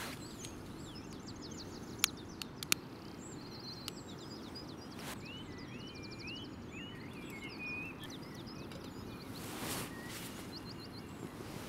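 Small birds chirping and singing in quick repeated trills over a steady low outdoor hiss, with three sharp clicks about two seconds in.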